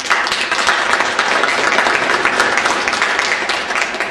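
Audience applauding at the end of a speech: many hands clapping together in a dense, steady patter that eases slightly near the end.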